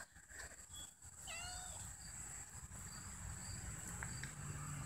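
A cat gives one short meow about a second in.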